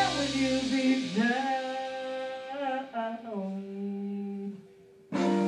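Female vocalist singing long, sliding held notes on her own after the band drops out about a second in; near the end she stops briefly and the full band comes back in at once.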